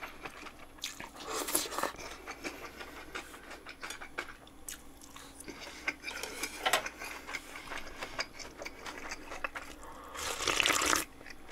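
Mouth sounds of chewing, with small wet clicks, then near the end a loud slurp of about a second as naengmyeon broth is sipped straight from the bowl's rim.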